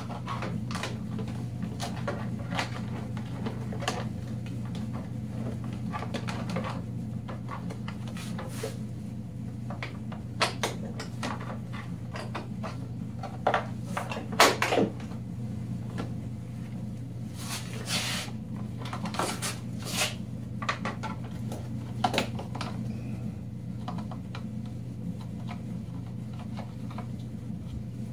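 Scattered knocks, clicks and rustles of a plastic Ski-Doo jerry can being set onto a snowmobile's rear rack and its straps worked by hand, the loudest knocks about halfway through. Under them runs a steady low hum.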